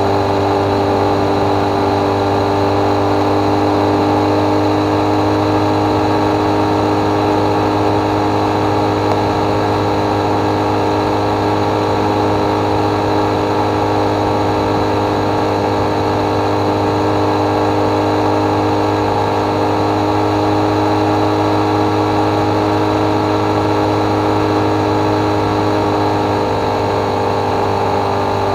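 Motorcycle engine running steadily at cruising speed on the open road, its pitch holding constant throughout, with road noise.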